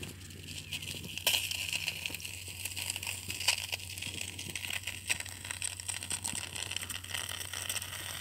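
Hydrogen peroxide fizzing and crackling with many tiny pops as it foams up over a blood-engorged tick. The foaming is the peroxide reacting with the tick's blood.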